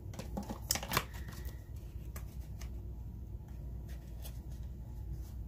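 Two quick hissing spritzes of a pump setting spray about a second in, followed by a few faint handling clicks over a low room hum.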